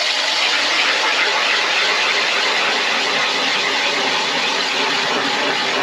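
Power ice auger running steadily at full power as its bit drills down through about a foot of lake ice.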